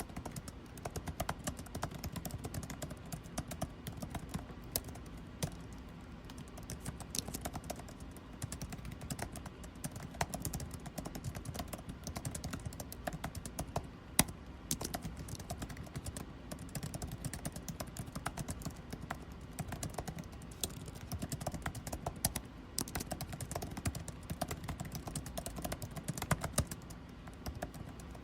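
Typing on a computer keyboard, a fast irregular clatter of key clicks, over the steady hum of air conditioning.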